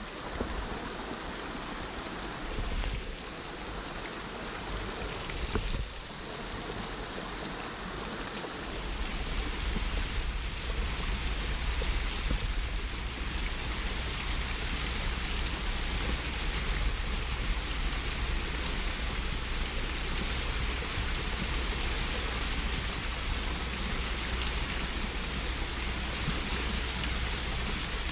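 Water of a mountain stream rushing over rock, a steady hiss. About nine seconds in it grows louder and fuller, with a low rumble added underneath.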